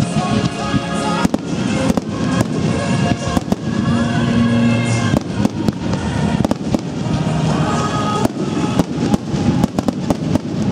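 Aerial fireworks shells bursting in quick, irregular succession, with many sharp bangs and crackling, over music playing along with the display.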